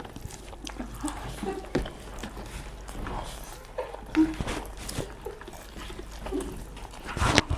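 People eating during a competition: scattered small clicks and mouth noises of chewing and handling food, with brief voice sounds and a louder sharp knock near the end.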